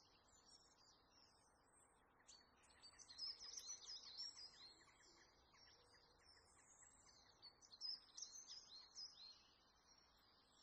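Faint bird chirping: many quick, high chirps and short falling whistles, busiest from about three to five seconds in and again around eight to nine seconds, over a soft steady hiss.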